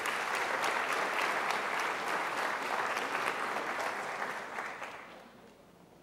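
Audience applauding in a large hall, loud at first and dying away about five seconds in.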